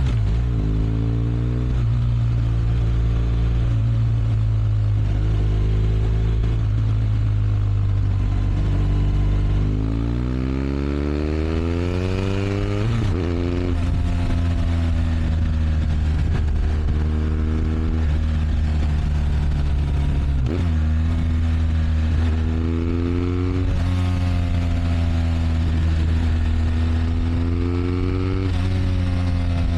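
BMW R1200 RS boxer flat-twin engine running steadily, then revving up several times, its pitch rising and falling back between each rise.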